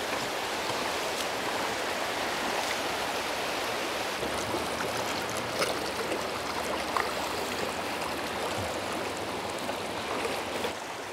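River water rushing steadily over a rocky, cobble-strewn bed: a continuous, even wash of flowing water.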